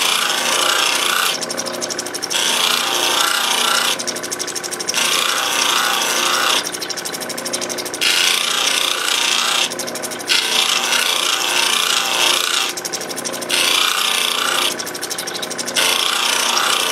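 Opal being rubbed against a spinning ultra fine lapidary polishing wheel in repeated passes of a second or two, lifted off briefly between them, over the steady hum of the cabbing machine's motor.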